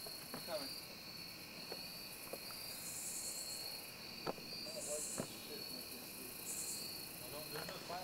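Insects chirping in woodland undergrowth: a steady, pulsing high chirp, with three louder buzzes of about half a second each. Two sharp clicks sound a little after four and five seconds in.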